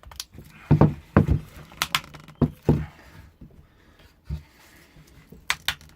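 Sharp knocks and clunks of a glued casting former being struck and prised apart with a mallet and an old screwdriver, about eight irregular hits with short pauses between.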